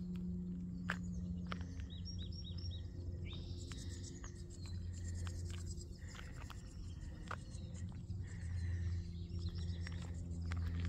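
Small wild birds chirping in short runs of quick repeated notes, twice, over a steady low hum, with scattered footsteps on pavement.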